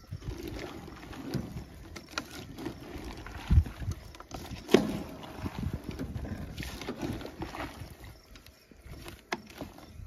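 Diced green peppers dropped into an enamelware pot, then a wooden spoon stirring them with sliced cucumbers and onions: irregular knocks and scrapes of the spoon against the pot, the sharpest about halfway through.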